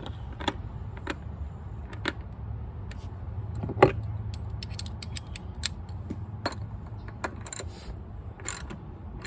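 Hand ratchet and socket clicking at uneven intervals while screws are tightened, with a sharper knock about four seconds in, over a steady low hum.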